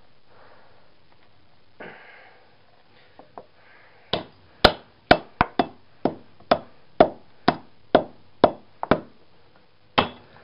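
Hammer striking a CRT television's deflection yoke: a run of sharp blows about two a second, starting about four seconds in and pausing briefly near the end, to break up the resin-glued core and free the copper windings.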